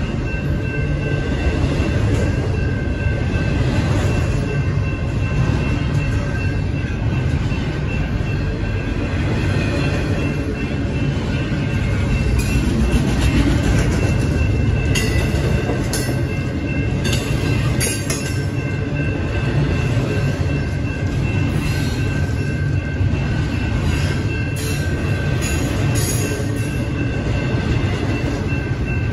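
Double-stack intermodal freight cars rolling past at a grade crossing: a steady low rumble of wheels on rail, with the crossing bell ringing as a steady high tone. Sharper high clatter and squeal from the wheels comes and goes from about halfway through to near the end.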